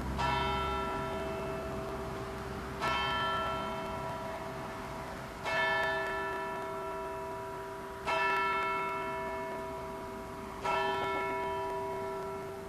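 A large bell tolling slowly: five strikes about two and a half seconds apart, each one ringing on and fading before the next.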